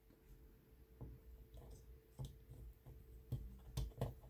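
Faint clicks and taps of hard plastic parts as a transforming robot action figure is handled, a handful of small clicks spread out, with a couple close together near the end.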